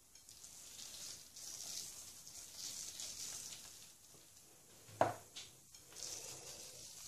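Chopped almond and peanut filling scattered by hand onto filo pastry, a faint pattering rustle that comes again and again as each handful lands. About five seconds in there is a single short knock.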